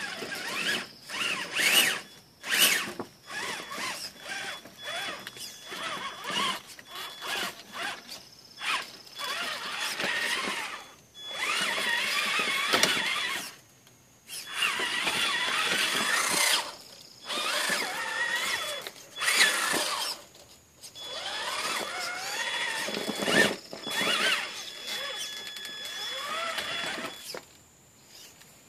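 Traxxas Summit RC rock crawler's electric motor and geared drivetrain whining in repeated bursts of throttle while it climbs a rock pile. The pitch rises and falls with wheel speed, with short pauses between bursts.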